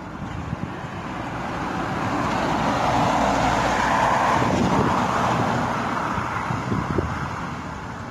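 A road vehicle passing close by, growing louder to a peak about halfway through and then fading away.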